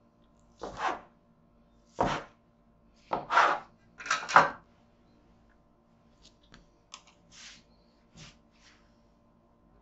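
A large knife cutting down through a ball of candeal bread dough onto a wooden worktop, then hands pulling the cut dough apart. The four loudest short sounds come in the first five seconds, followed by a few softer handling sounds.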